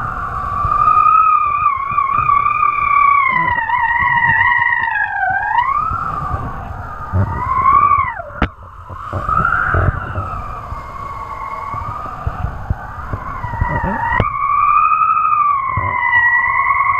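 Wind whistling over the kiteboarding gear as the rider carves across the water: a wavering whistle that slides up and down with his speed, dips and breaks off during a turn about eight seconds in and comes back sharply near the end, over the rough rumble of wind buffeting the microphone.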